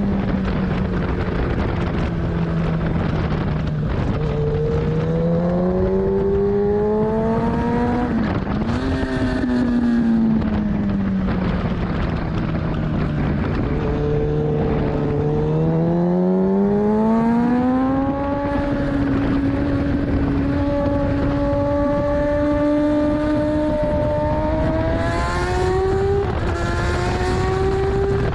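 2014 Kawasaki ZX-10R's inline-four engine on track, its pitch falling off under deceleration and climbing again under throttle several times, holding steady through a middle stretch and rising near the end with brief dips at the shifts. Wind rushes over the microphone throughout.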